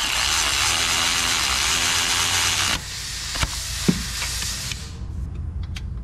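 Power ratchet running on an extension to drive down a bolt: a loud, steady hiss with a low whine for about three seconds, then it stops and a fainter hiss fades away, with a couple of light clicks.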